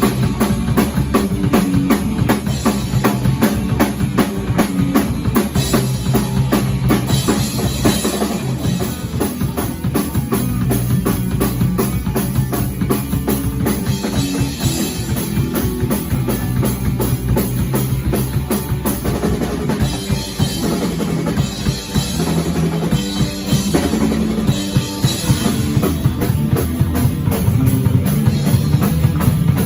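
Instrumental rock music with no vocals, driven by a drum kit with busy, rapid bass-drum and cymbal strikes over a steady low pitched backing.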